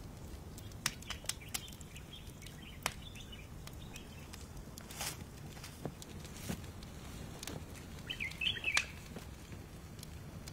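Quiet outdoor ambience: a faint steady background with scattered soft clicks, and a short bird chirp about eight seconds in.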